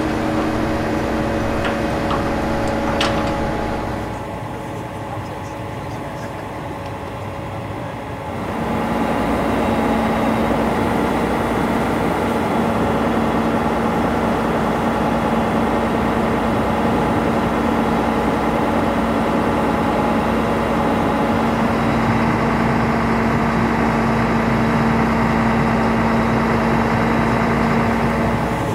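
Heavy diesel engine of a MAN Kat military truck running steadily at idle to power its hydraulic loading crane, with a steady low hum. It drops quieter for a few seconds near the start, then comes back louder.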